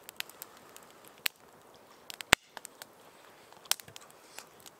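Wood fire crackling, with irregular sharp snaps and pops, the loudest about halfway through.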